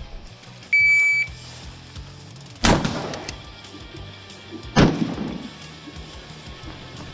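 Electronic shot timer beeps once, a steady high tone about half a second long, signalling the start of an IPSC rifle stage. Two rifle shots follow about two seconds apart, each ringing out with an echoing tail.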